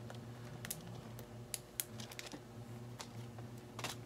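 Irregular light clicks and crinkles of a small bag of bee game pieces being handled, about seven sharp ticks, over a low steady hum.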